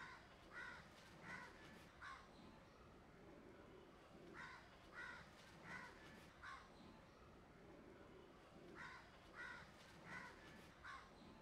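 A crow cawing faintly, in three runs of about four caws each, with short gaps between the runs.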